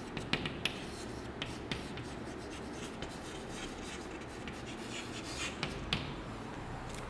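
Chalk tapping and scratching on a blackboard as words are written, in short strokes: a run of ticks in the first couple of seconds and another about five and a half seconds in.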